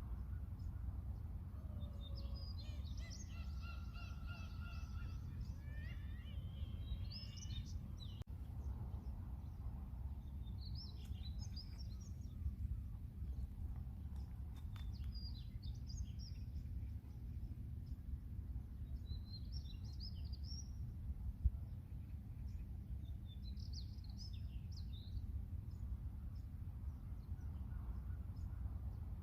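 Seagulls calling over a steady low rumble: a longer call from about two seconds in, then short scattered calls through the rest.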